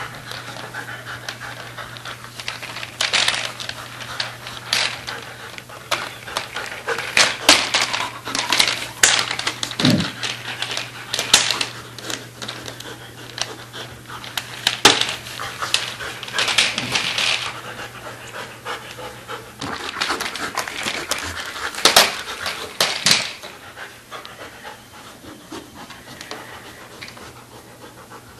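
A German shepherd panting while it noses and shoves a light tube-frame laundry cart on casters, the frame knocking and clattering in scattered short hits. The clattering is loudest a little past the middle and thins out near the end.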